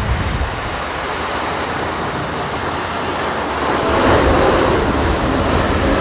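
Boeing 747 freighter's jet engines on final approach, a roar that swells louder about four seconds in, with strong gusty wind rumbling on the microphone.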